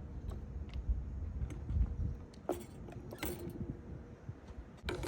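Light metallic clinks and knocks from a motorcycle's handlebars being lifted up off their risers after the riser caps have come off.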